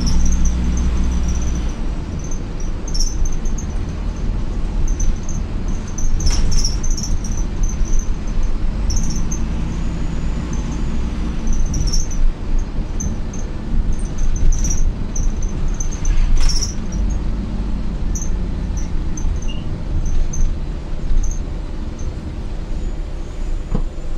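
Inside an Optare Solo midibus under way: a steady low engine and road rumble, with frequent short high squeaks and rattles from the interior fittings and an occasional sharp clunk over bumps.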